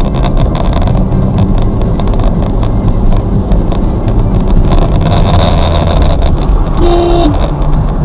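A car driving, heard from a dashboard camera inside the cabin: a steady low engine and road rumble with frequent small clicks, and a short beep about seven seconds in.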